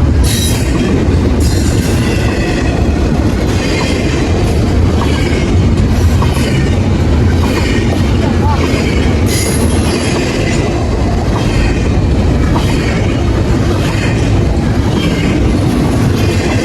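Train cars rolling past with a steady low rumble. The wheels clatter rhythmically and give brief high screeches about once a second.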